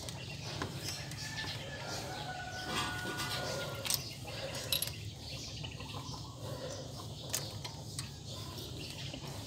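A few light clicks and taps from hands handling parts on a diesel engine's injection pump linkage, over a low steady background hum.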